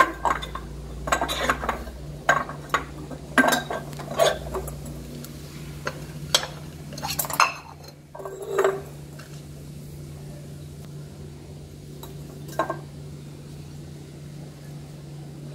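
Salted lemon quarters being pushed down into a glass jar by hand: a series of knocks and clinks against the glass, most of them in the first half, then only one more a few seconds before the end, over a steady low hum.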